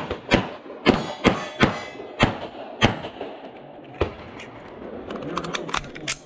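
1911 pistol fired in rapid succession: about seven shots in the first three seconds, then a single shot about four seconds in. A scatter of lighter clicks and knocks follows near the end.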